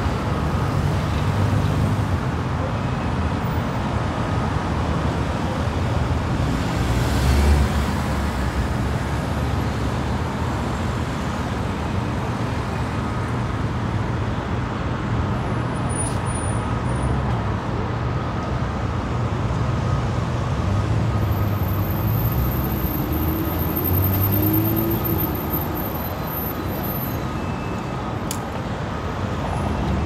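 Steady city road traffic: cars passing, with a low rumble of engines and tyres and a louder pass about seven seconds in.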